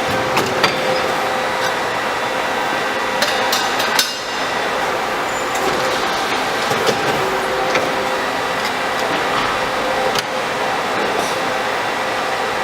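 RD30 CNC tube bending machine running: a steady mechanical whir with faint steady tones, broken by sharp metallic clicks and clanks, with a cluster of them about three to four seconds in and more scattered through the rest.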